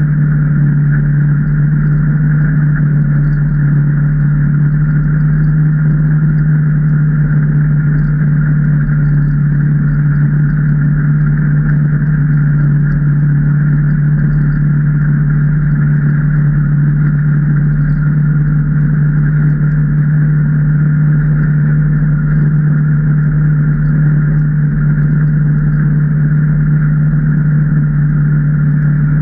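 2019 Can-Am Maverick Trail 800 side-by-side's Rotax V-twin engine running at an even cruising speed, a loud steady hum holding one pitch.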